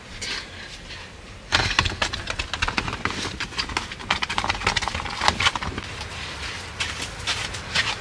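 Rapid rustling and light clattering of camping gear being handled, starting about a second and a half in and going on as a dense run of small clicks and knocks.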